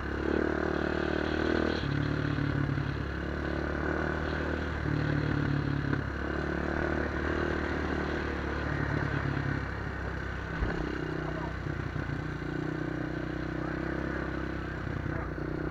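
Honda 400EX ATV's single-cylinder four-stroke engine, fitted with an aftermarket White Bros exhaust, running under load while being ridden, the throttle opening and closing every second or two. Light clattering from the rough, broken road surface.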